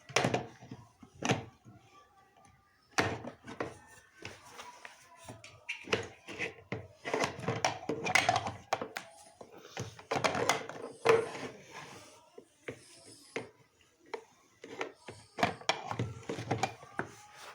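Irregular knocks and taps of a child tinkering at a repair, objects knocked and handled in a small room.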